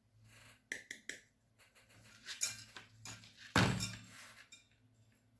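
Kitchenware clinking and knocking against a mixing bowl while cake batter ingredients are added: a few light clinks about a second in and one louder knock about three and a half seconds in.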